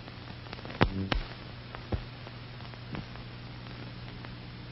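Steady low hum under faint hiss, broken by a few sharp clicks and pops, the loudest pair about a second in: the background noise of an old film soundtrack.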